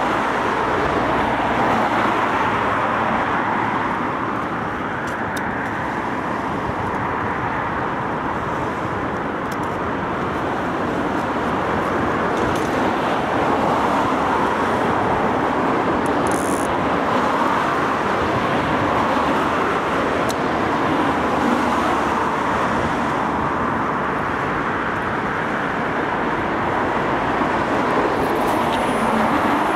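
Road traffic on the road alongside: a continuous wash of passing cars and tyre noise that swells and eases as vehicles go by.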